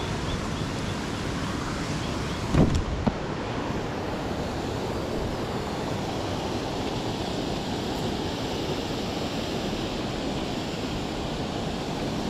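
Steady rushing of a creek's waterfall and cascades over granite rocks. Two or three sharp knocks come close together about two and a half to three seconds in.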